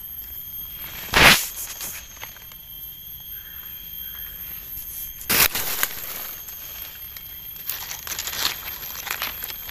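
Rustling and crackling of dry leaf litter and handling noise as a hand digs up and turns over a bolete mushroom. There are two loud brushing bursts, about a second in and about five seconds in, and a run of small crackles near the end, over a steady high-pitched tone.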